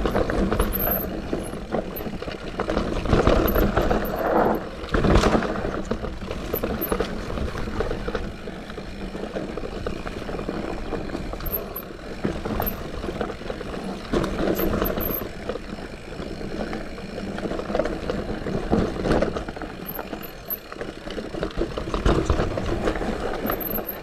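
Santa Cruz Heckler electric mountain bike running down a forest singletrack: knobbly tyres rolling over dirt and roots, with the bike knocking and rattling over bumps in uneven surges.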